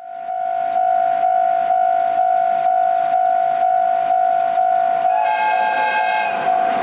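Japanese level-crossing warning alarm ringing its electronic bell tone, about two strikes a second. About five seconds in, a train horn sounds for just over a second over it.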